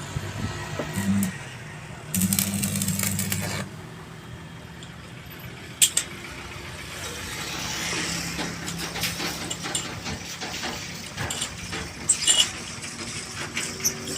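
Metal parts and tools clinking and rattling during truck wheel-bearing work, over a steady low engine hum. A loud hissing burst lasts about a second and a half early on, and there is a sharp click partway through.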